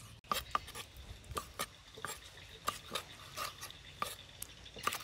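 Cleaver chopping small fish on a thick round wooden chopping block, each blow a sharp knock, about three a second at an uneven pace.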